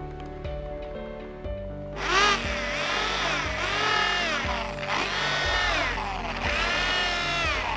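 Background music; about two seconds in, a spinning tool starts whining, its pitch rising and falling in repeated strokes roughly every second and a half.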